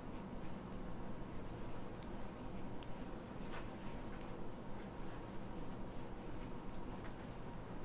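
Crochet hook working yarn through a row of double crochet stitches: faint, irregular soft scratches and ticks over a low steady room hum.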